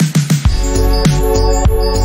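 Background music with a steady beat: a quick drum fill, then sustained chords and a bass line come in about half a second in.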